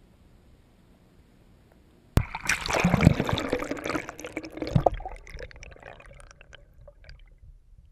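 Water splashing and bubbling against a GoPro camera's waterproof housing as it moves through the water, starting suddenly about two seconds in and fading out into scattered drips and pops. Before it, only a low muffled rumble.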